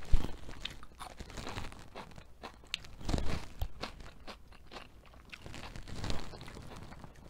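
Close-miked mouth sounds of eating: crunchy chewing with scattered crackles. There is a louder crisp bite into a raw yellow pepper strip about six seconds in.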